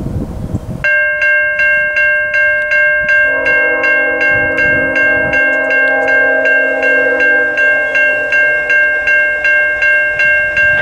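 Safetran Type 3 electronic railroad crossing bell starts ringing about a second in, a rapid, steady ding about three times a second: the crossing warning for an approaching train. Under it a train horn sounds, with a longer blast from about three seconds in that fades about halfway through.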